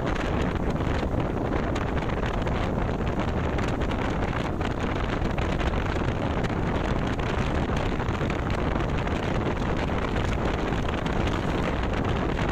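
Steady wind noise on the microphone of a moving motorcycle, with road and motor noise underneath.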